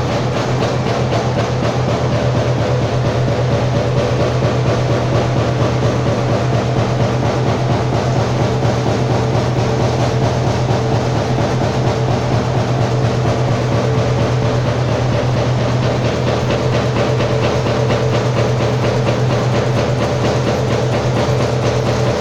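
Amada Europe 255 CNC turret punch press working: a rapid, even run of punching strokes over the machine's steady drive hum.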